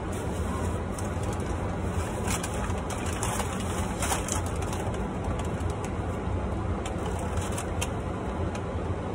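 A steady low hum fills the car's cabin, with short paper crinkles and rustles about two to four seconds in and again near the end as a napkin and sandwich wrapper are handled.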